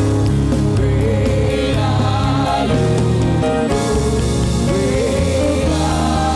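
Gospel worship music: sung vocals with a choir over a band, with steady held bass notes.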